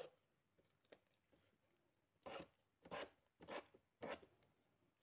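A hand utensil scraping thick choux pastry dough down the sides of a stainless-steel stand-mixer bowl, with the mixer stopped: about five short scrapes a little over half a second apart, starting about two seconds in.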